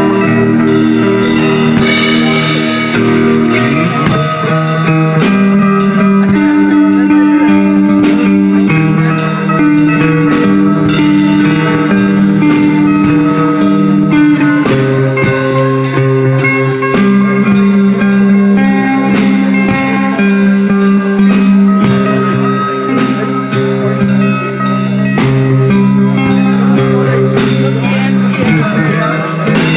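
Live band playing: guitar chords held for a few seconds at a time and changing, over a steady drum beat.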